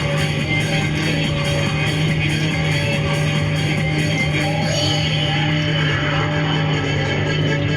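Rock-style background music with a steady low drone underneath.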